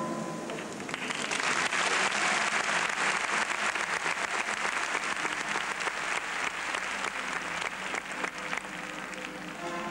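Audience applauding, building up about a second in and thinning out near the end.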